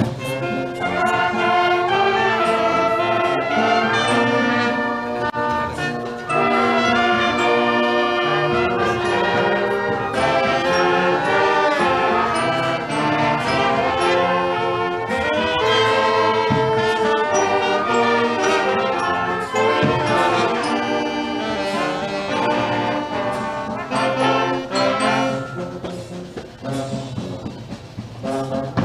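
Brass band playing a slow piece in long held chords, softening for a few seconds near the end.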